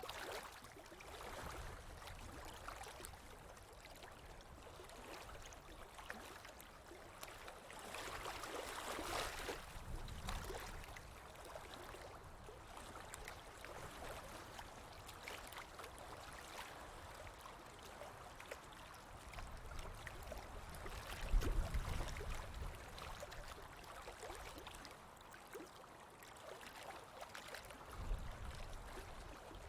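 Running water in a natural stream: a steady, shifting hiss of flowing water that swells for a couple of seconds about a third of the way in. Two short low thumps sound later on, the second near the end.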